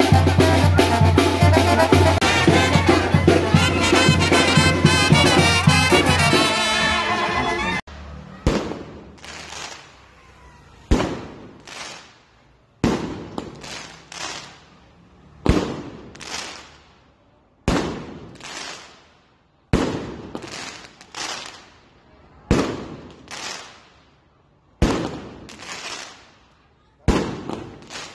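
Music with a strong bass line until about eight seconds in, then fireworks exploding: sharp single bangs about once a second, each with a fading, echoing tail.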